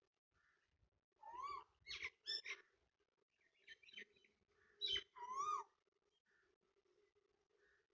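A series of short, high animal calls, each rising then falling in pitch, coming in quick groups of two or three. A faint steady hum runs underneath.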